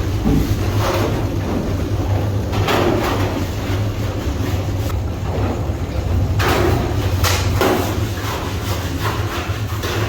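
Factory machinery running with a steady low hum, with irregular clattering and knocking over it, loudest about a third of the way in and again about two thirds in.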